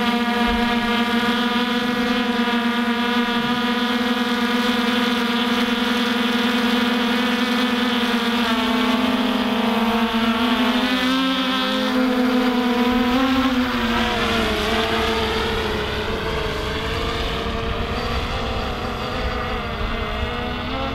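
Thunder Tiger Ghost+ quadcopter's four brushless motors and 11-inch propellers hovering overhead, a steady many-toned buzz. From about eight seconds in the pitches waver and cross as the motors change speed, then spread apart over a low rumble.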